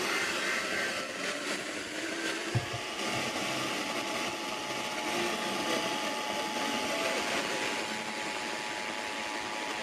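Radio static hiss from a receiver picking up an Emergency Alert System broadcast. About three seconds in, a faint steady two-note alert tone starts and holds, the attention signal that comes before the next spoken warning. There is a brief low knock a little earlier.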